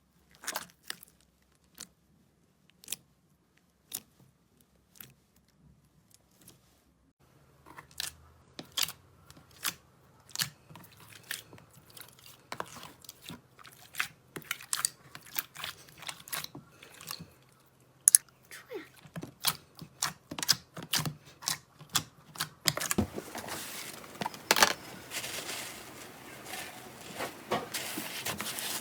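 Slime being pressed and squished by hand, giving sharp crackling pops and clicks. These are sparse at first, about one a second, then come faster and thicker, and near the end they merge into a continuous crackle.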